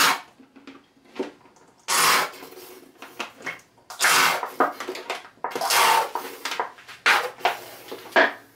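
Plastic squeeze bottle of ketchup squeezed upside down, sputtering out short spurts of air and sauce, about six squirts roughly one every second and a half.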